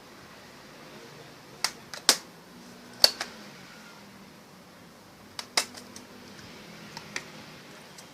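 Sharp plastic clicks and snaps of a Toshiba Satellite C855 laptop keyboard being pried out of its top case, its retaining clips releasing one after another: about seven clicks, some in quick pairs, the loudest around two and three seconds in.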